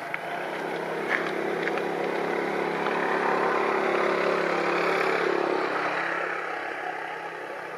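A motor vehicle engine running, steady in pitch. It grows louder towards the middle and fades again near the end.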